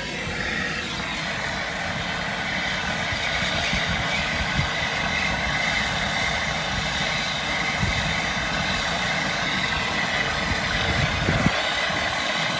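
Brazing torch flame hissing steadily against copper refrigerant pipe, with an unsteady low rumble underneath.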